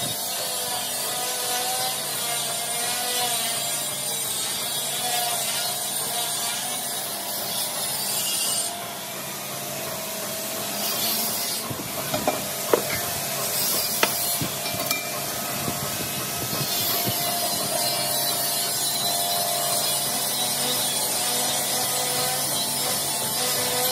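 Continuous abrasive grinding and rubbing of a power tool working metal, with a faint wavering whine. A few sharp knocks come about halfway through.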